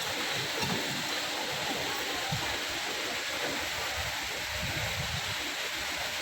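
Water rushing steadily through a breached river dam, a continuous even rush of torrent water.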